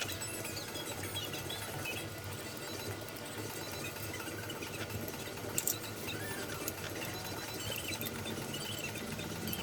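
A small motor running steadily with a low hum, and a brief click a little past halfway.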